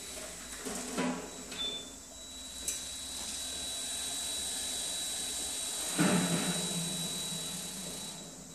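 Small wheeled warehouse robot working under a steel shelf: a steady high motor whine, with a brief burst of noise about a second in and a louder low rumble starting about six seconds in that fades near the end.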